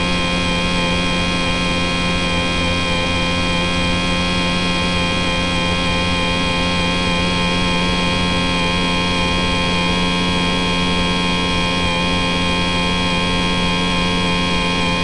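HobbyZone Champ ultra-micro plane's 3000kV brushless outrunner motor and propeller whining steadily at constant throttle, heard from a camera on board the plane with a rush of air noise.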